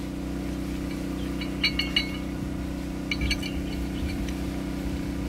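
Steel bolts clinking as they are handled and set into the lock plate of an excavator swing reduction gear: two short clusters of light metallic clinks, about one and a half and three seconds in, over a steady low hum.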